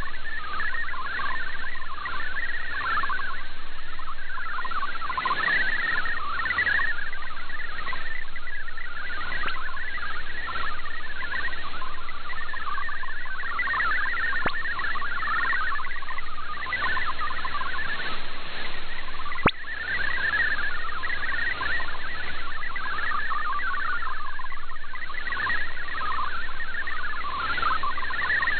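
MFSK digital-mode text transmission received on shortwave: a fast, random-sounding warble of short tones hopping within a narrow band, over radio hiss. A single sharp click comes about two-thirds of the way through.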